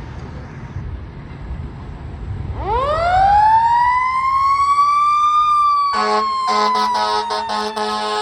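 Fire engine's Federal Q mechanical siren winding up from a low rumble into a rising scream about two and a half seconds in, peaking and then slowly winding down. From about six seconds in, the truck's air horns sound in a series of short blasts over the falling siren.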